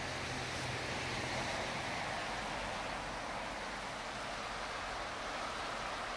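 Shallow mountain river rushing over rocks and riffles: a steady, even hiss of moving water.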